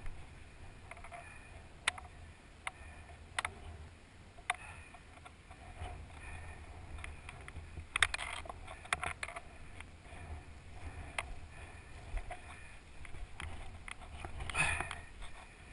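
Low wind rumble on the microphone with scattered sharp clicks and knocks: a cluster about eight seconds in and a louder burst near the end.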